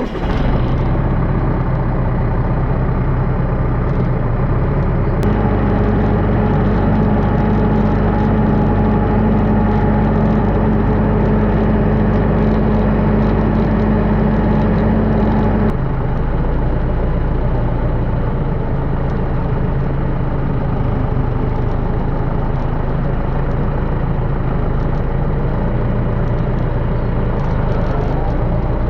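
Truck engine running steadily. A steady hum joins about five seconds in and drops out a little past halfway.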